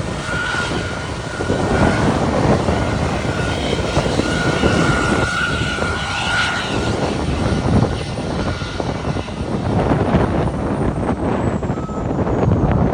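Jet airliner's engines at take-off power: a steady rushing noise with a high whine that is strongest in the middle.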